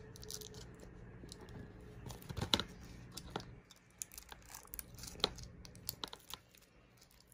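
Plastic shrink-wrap being peeled and torn off a DVD case: scattered crinkling and crackling, with sharper snaps about two and a half seconds in and again about five seconds in.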